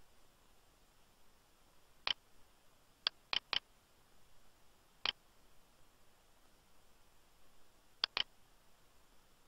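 Seven sharp clicks from a computer mouse and keyboard: one about two seconds in, a quick run of three a second later, one more at about five seconds, and a close pair near the end.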